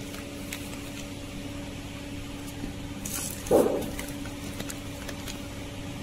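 Filled plastic sachets rustling and crinkling as a hand picks them up and squeezes them, with one louder crinkle about three and a half seconds in, over a steady machine hum.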